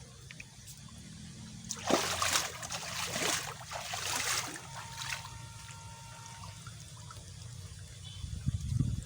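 Water splashing and trickling in a few loud rushes between about two and four and a half seconds in, with a low rumble near the end.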